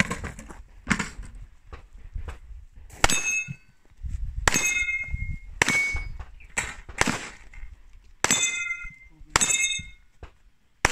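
Handgun shots fired one at a time, about eight of them spaced roughly a second or so apart. Several are followed by a short metallic ring, as of steel targets being hit.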